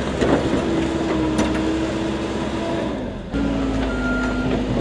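Engine running steadily in the mud, then, after a cut about three seconds in, a backhoe loader's diesel engine running with its reversing beeper sounding one long beep near the end.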